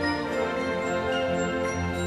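Background music of sustained, held chords at a steady level.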